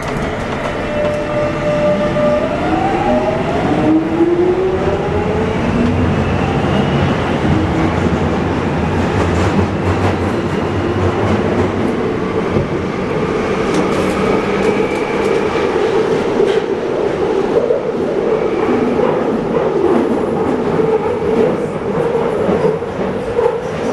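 London Underground Jubilee line 1996 Stock train pulling away, heard from inside the carriage. For the first few seconds the traction motors whine in several pitches that glide upward as it accelerates, then the whine gives way to steady wheel-and-rail running noise in the tunnel.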